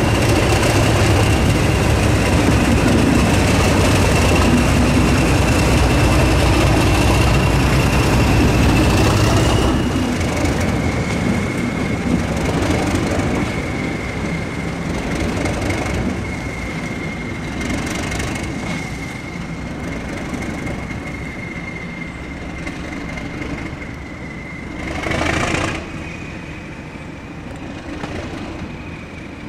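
Freight train passing by the lineside: a heavy low engine rumble for about the first ten seconds, then the train rolling by more quietly with a steady high-pitched whine, and a short louder rush near the end.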